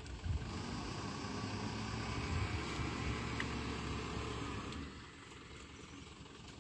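Dump truck's engine running loud under load, easing off about five seconds in.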